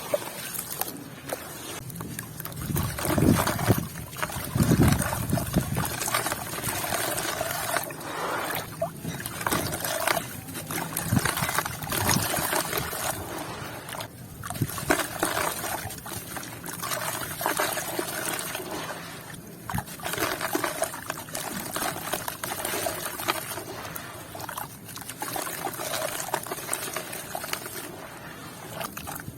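Sand and red dirt with small white stones crumbling into water: wet trickling and sloshing with scattered clicks, and heavier soft thuds about three to six seconds in.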